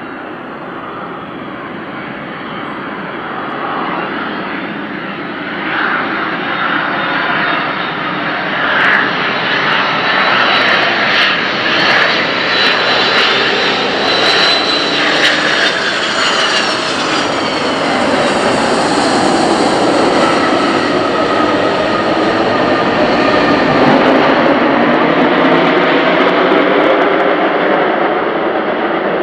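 Boeing 727-100 jet engines (Pratt & Whitney JT8D) on a landing, growing louder on approach with a high whine that slides down in pitch as the jet passes. After touchdown comes a louder, steady roar that lasts to the end, which is the reverse thrust being applied.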